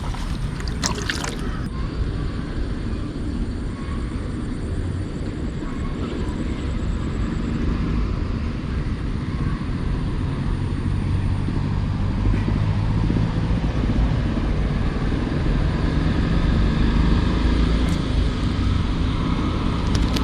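A steady low engine drone that slowly grows louder, with a few short clicks in the first second or two.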